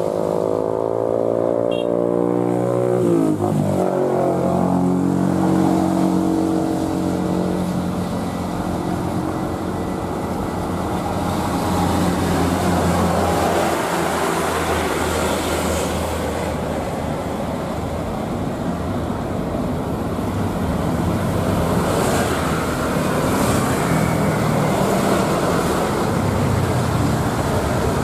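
Jet engines of a Garuda Indonesia Boeing 737-800 passing on the runway, their tones sliding down in pitch over the first three seconds as it goes by. After that comes a steady jet rumble under a broad hiss.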